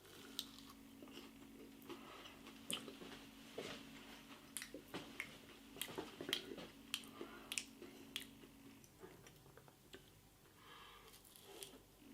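A person biting into and chewing a potato wedge close to the microphone: faint, irregular mouth clicks and small crunches. A faint steady hum runs underneath and stops about three quarters of the way through.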